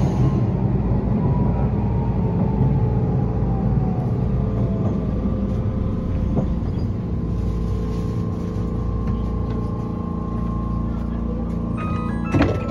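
Tram running, heard from on board, with a steady low rumble and hum. A motor whine falls in pitch over the first five seconds or so as the tram slows. There is a short, sharp sound near the end.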